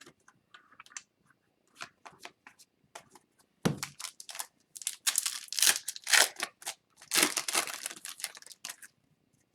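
Foil wrapper of a hockey card pack being torn open and crinkled in quick rips and crackles, with a single thump about a third of the way in.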